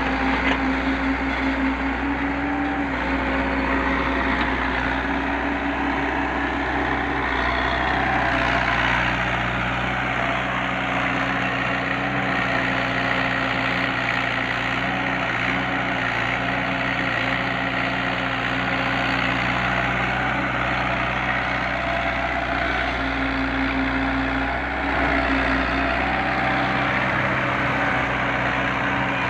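Mini excavator's diesel engine running steadily, its engine note shifting a few times as it works.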